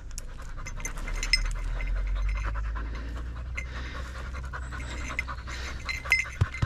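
A dog panting close by, with scattered small clicks and rustling from dry brush.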